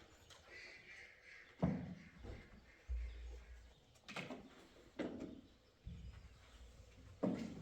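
Wooden door being handled: about half a dozen separate knocks and thuds at irregular intervals, some with a deep thump.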